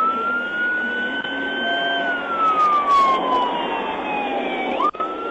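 Police car siren wailing: the tone climbs slowly for about two seconds, falls over the next three, then sweeps sharply back up near the end.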